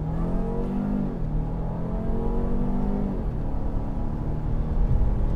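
Lincoln Nautilus's 2.7-litre twin-turbo V6 at full throttle, heard from inside the cabin, its pitch climbing through the gears. The automatic upshifts twice, about one second and about three seconds in, and each shift drops the pitch before it rises again.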